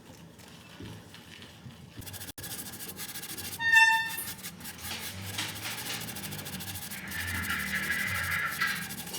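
Scrubbing and rubbing on a coin being cleaned, starting about two seconds in and going on steadily. A short, clear ringing tone sounds a little later and is the loudest sound.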